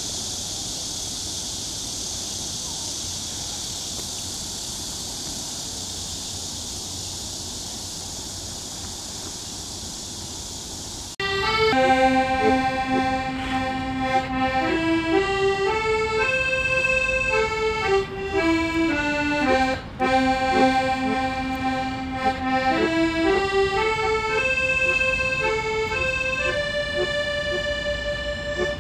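A steady high hiss for about the first eleven seconds, then an accordion starts suddenly, playing a slow tune of held notes that step up and down.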